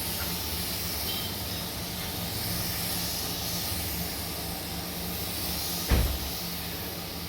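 Compressed-air paint spray gun hissing steadily over a low steady hum, with a single thump about six seconds in.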